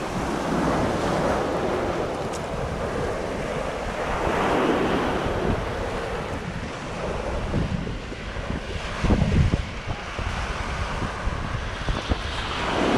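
Surf washing onto the shore in slow swells, with wind buffeting the microphone; the strongest gust comes about nine seconds in.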